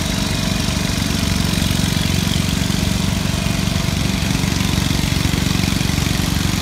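Diesel engine of a Hidromek crawler excavator running steadily with an even low rumble.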